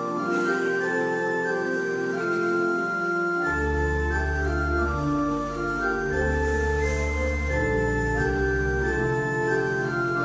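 Organ playing a slow hymn in held chords, the notes changing every second or so. Deep bass pedal notes come in about three and a half seconds in.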